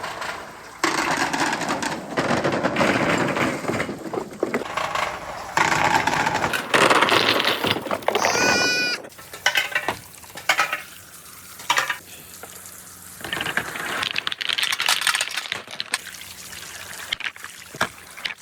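Marbles rolling along a marble-run track: long rolling rushes for the first nine seconds, then scattered sharp clicks and clacks as the balls strike the track. A short warbling pitched tone comes about eight seconds in.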